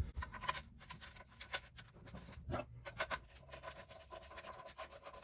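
Light scraping and irregular small clicks from a loosely screwed adapter plate being shifted on a plastic ski-boot sole and a screw being turned with a Y-shaped hex key.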